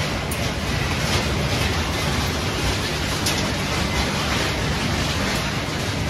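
Steady machinery din from a refrigerator recycling line, a constant rushing roar from its shredding, conveying and sorting machines, with a few faint ticks of scrap.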